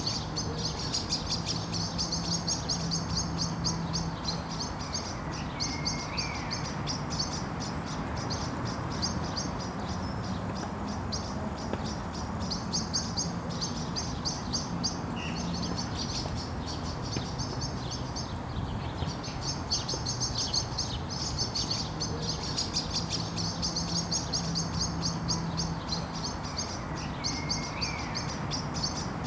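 Small birds chirping in the trees in quick, continuous runs, broken by short pauses. A low steady hum comes in twice, each time for a few seconds.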